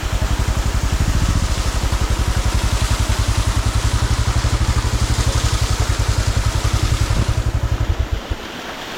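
Motorcycle engine running with an even, fast low pulse, then stopping abruptly about eight seconds in.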